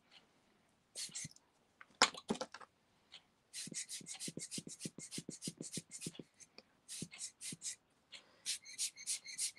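Quick puffs of air from a hand-squeezed air pump, about five squeezes a second in short runs with pauses between, blowing on wet alcohol ink to texture it. A louder rattle about two seconds in.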